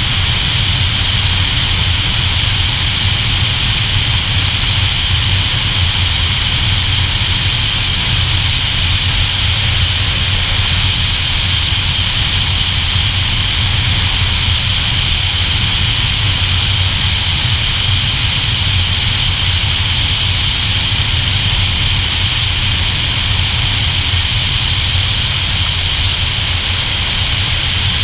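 Motorcycle under way at a steady cruise: wind rushing over the camera mixed with the engine and road noise, steady throughout.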